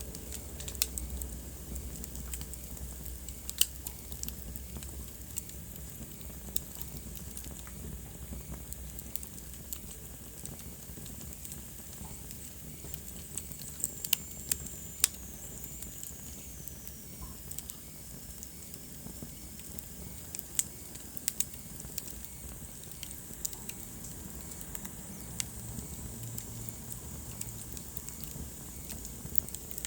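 Wood fire burning in a fireplace: a soft steady hiss broken by irregular sharp crackles and pops, with a faint high whistle that slides down in pitch around the middle.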